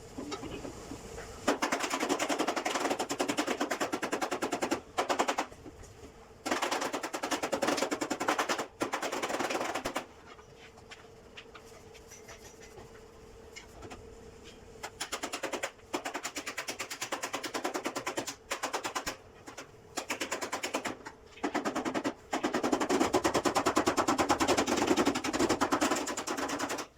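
A power tool hammering in rapid repeated strokes, many per second, running in bursts of a few seconds with short pauses between them.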